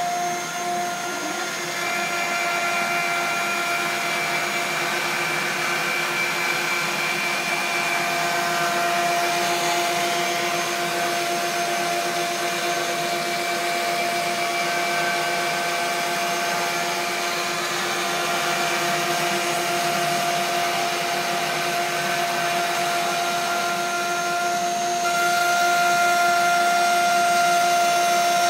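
An electric power tool's motor running steadily, a constant whine over a rushing noise, growing a little louder near the end.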